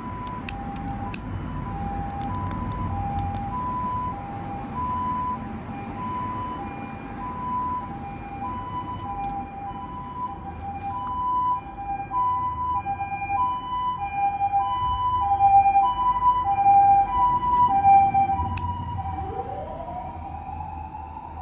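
Japanese ambulance two-tone siren, the hi-lo "pee-po" alternating between two notes about every half second, growing louder as it passes. Near the end it switches to a single wail that rises and then falls in pitch.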